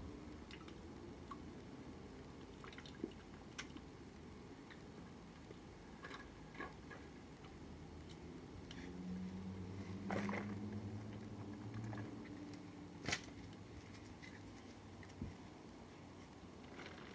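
Thick gunge pouring from a jug and a tin onto a person's head, landing in faint squelches, drips and sharp splats. A low drone swells and fades midway.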